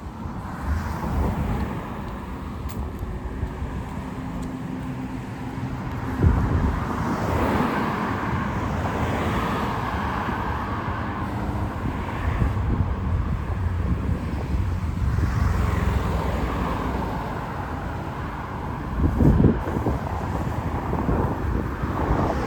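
Street traffic: cars passing along the road in a steady wash of engine and tyre noise that swells as each goes by. Two short low thumps stand out, about six seconds in and again near the end.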